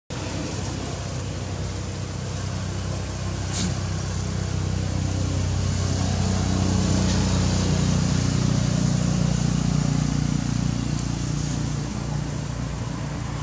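A motor vehicle's engine running steadily, a low hum with road noise that grows a little louder in the middle and eases off again near the end.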